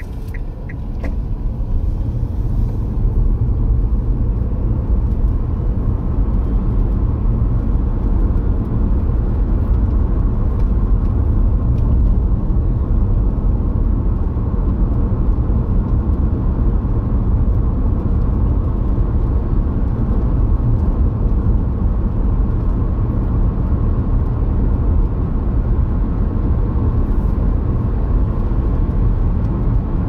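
Car driving along a road, heard from inside the cabin: a steady engine and tyre rumble that grows louder over the first few seconds as the car speeds up.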